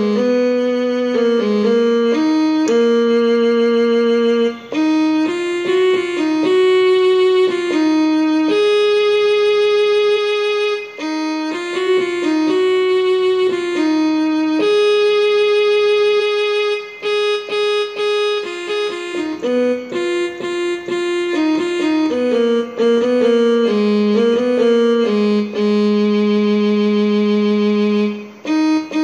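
Portable electronic keyboard playing a slow single-line melody, one note at a time, on a sustained voice whose notes hold steady without fading, with short breaks between phrases.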